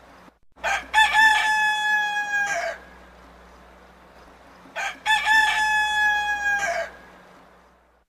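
Rooster crowing twice, each a full cock-a-doodle-doo: a few short opening notes, then one long held note that drops away at the end. The crows start about half a second and about five seconds in.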